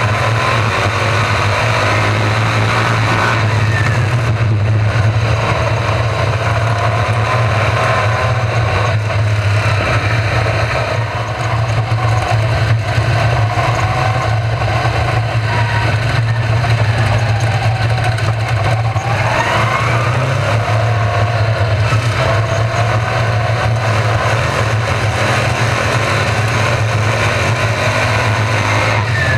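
Several RaceSaver sprint cars' 305 small-block V8 engines racing on a dirt oval, a continuous engine din whose pitch keeps rising and falling as the cars accelerate out of the turns and sweep past.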